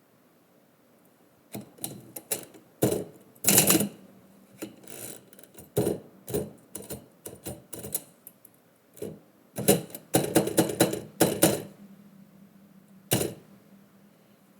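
Typewriter being typed on: irregular clusters of sharp key strikes that begin about a second and a half in and stop shortly before the end.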